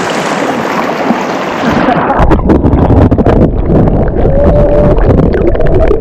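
River water rushing, then about two seconds in the sound abruptly turns low and muffled as the GoPro action camera goes under the water, picking up the river's underwater rumble.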